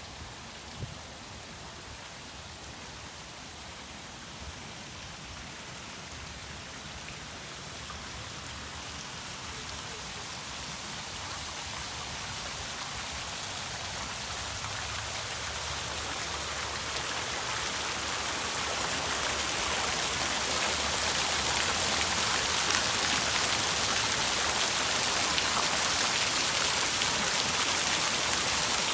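Steady hiss of falling water, like rain or a fountain, growing gradually louder over about twenty seconds and then holding steady.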